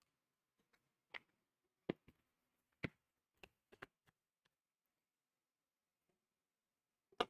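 Near silence broken by a handful of short, sharp clicks in the first four seconds and one more near the end.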